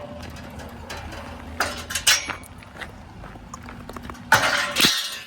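Scrap metal being handled and loaded into a van: a few clunks, then a louder, longer scraping clatter near the end. A vehicle engine hums steadily underneath.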